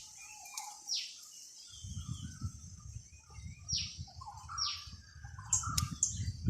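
Birds calling: a sharp call sweeping down in pitch, repeated several times, with softer chirps among it. From about two seconds in, wind on the microphone adds a low rumble.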